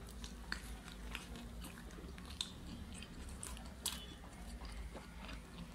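People chewing chicken shawarma wraps: faint mouth sounds with scattered short wet clicks and smacks.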